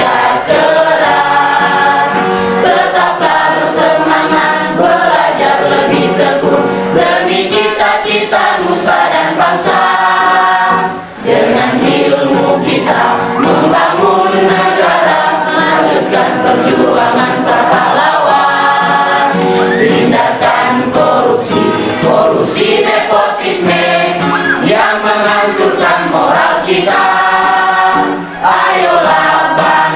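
Music: a song sung by a group of voices over instrumental accompaniment, with two short breaks between phrases, about 11 seconds in and near the end.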